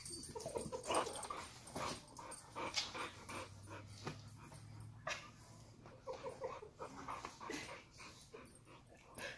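Dogs sniffing and snuffling up close, short irregular breathy sniffs and snorts in quick succession.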